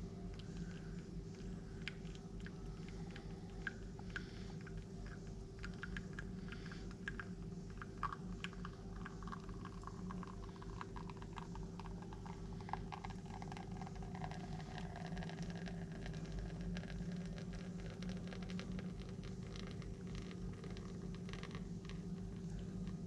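Espresso dripping and trickling from a bottomless portafilter on a La Pavoni Europiccola manual lever machine into a shot glass during the pull: faint ticks and drips over a steady low hum.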